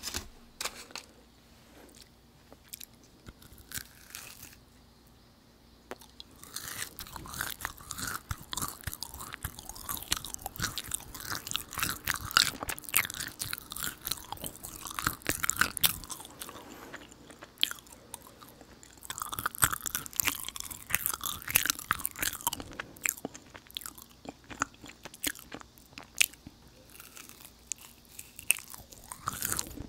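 Close-miked chewing of a soft, sticky Hadir dried jujube (date), with many small wet mouth clicks. The chewing is sparse and quiet at first, then grows denser and louder from about six seconds in.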